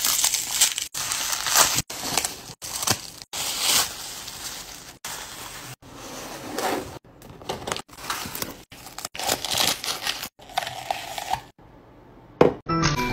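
Bubble wrap and plastic packaging crinkling and crushing as hands pull it off items, in a string of short bursts that cut off abruptly. Music begins near the end.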